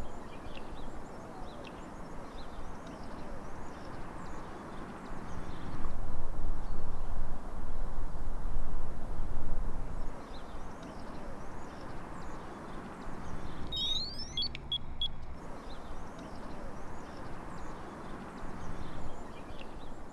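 Outdoor background: a steady rushing noise with small birds chirping, swelling louder for a few seconds near the middle. A brief run of high electronic beeps comes about two thirds of the way through.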